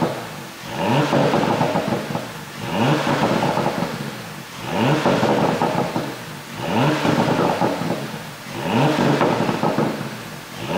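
Porsche Panamera 4's twin-turbo V6 revved over and over, about once every two seconds, each rev rising in pitch and then crackling and popping through the exhaust as it falls back, from an ECU tune that adds overrun pops.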